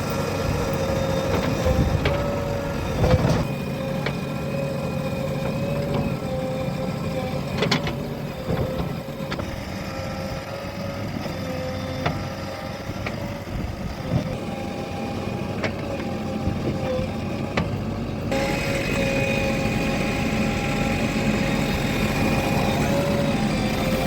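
Diesel engines of a backhoe loader and tractors running steadily, with a held whine over the drone. A few sharp knocks come at about 3 and 8 seconds.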